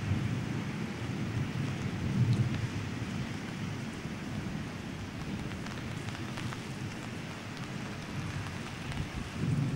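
Torrential rain falling steadily during an electrical storm, with low rumbles of thunder swelling about two seconds in and again near the end.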